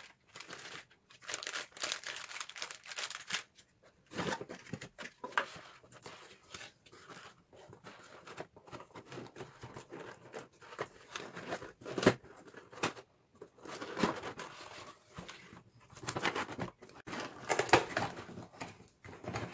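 Cardboard packaging and a plastic bag rustling and crinkling in bursts as hands unpack a board game's box, with a few sharper knocks of plastic pieces against cardboard.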